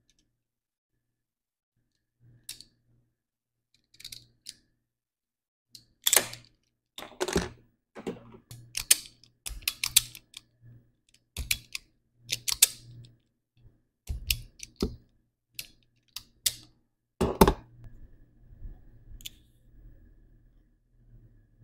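Irregular clicks, taps and rustles of a crimping tool, wire and small parts being handled, with a few sharper knocks.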